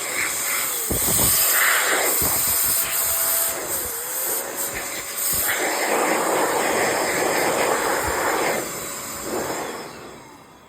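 XPOWER electric air duster running, blowing air down over a laptop: a loud rushing hiss with a faint motor whine under it, swelling and easing as the nozzle moves. It dies away near the end.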